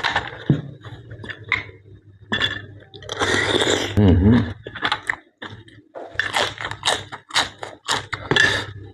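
Close-up mouth sounds of a person eating blanched blood cockles: wet chewing and smacking with many short sharp clicks, and a louder, longer smacking stretch around the middle.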